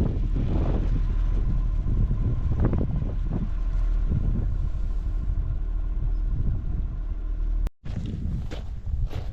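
Strong wind buffeting an action camera's microphone, a steady deep rumble. Near the end it cuts off abruptly and a few crisp crunches of footsteps on loose volcanic scree follow.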